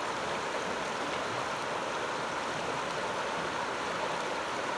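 Shallow mountain stream rushing over rocks and gravel: a steady, even rush of water.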